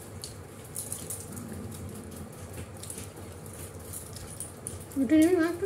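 Quiet eating sounds: hands tearing roti and working curry on plates, with faint scattered clicks. About five seconds in comes a short, loud hum-like sound with a wavering pitch.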